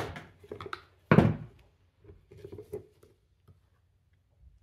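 Sharp plastic snaps and clicks of screwdrivers prying at the tabs holding the cap on a Porsche 944 air/oil separator, as the cap is worked loose. The loudest snap comes about a second in, followed by scattered lighter clicks and taps.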